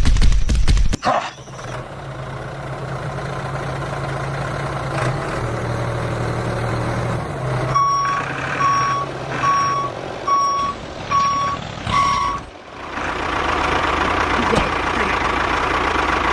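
A clatter of knocks in the first second, then a truck engine running steadily. About halfway through, six evenly spaced reversing beeps about a second apart sound over the engine.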